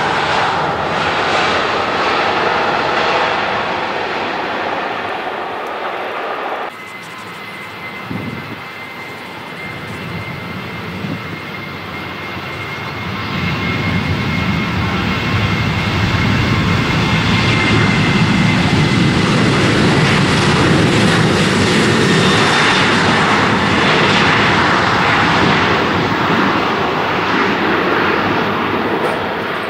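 Jet airliners taking off at full thrust. First an Airbus A320 runs loud as it lifts off. After an abrupt cut, a Boeing 737's engines sound with a steady high whine, grow louder as it accelerates down the runway, and ease off a little near the end.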